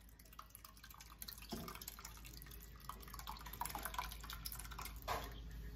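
Reduced, sweetened milk pouring from a pan into a glass baking dish over rasmalai balls, splashing and dripping. It gets louder after about a second and a half.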